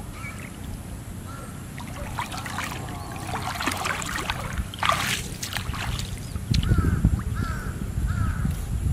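Water splashing and swishing as a person wades through shallow water among grass, loudest in the middle. A bird gives short calls several times, and a low rumble joins over the last two seconds.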